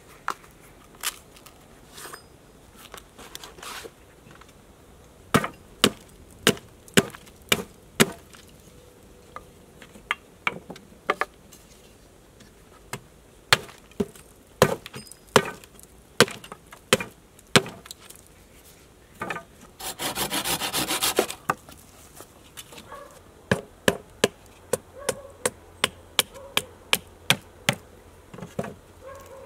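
Knife cutting and whittling wooden sticks: a string of sharp, irregular wooden knocks and cuts as the blade bites into the wood, with a burst of rapid rasping strokes lasting about a second and a half about twenty seconds in.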